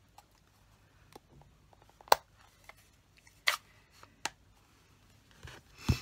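A few sharp plastic clicks and taps as a stamping ink pad's plastic case is opened and stamping supplies are set down on a desk, the loudest about two seconds in, with a heavier knock near the end.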